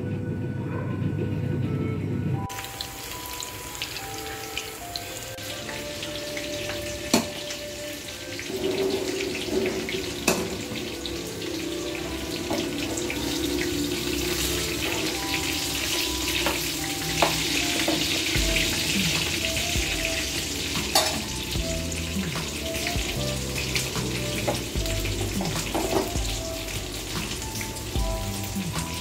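Pieces of meat frying and sizzling in a pan, stirred with a metal spoon that knocks sharply against the pan now and then. Faint background music plays along.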